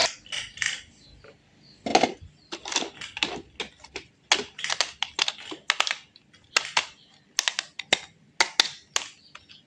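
An irregular run of sharp clicks and light taps, a few dozen in small clusters with short gaps between them.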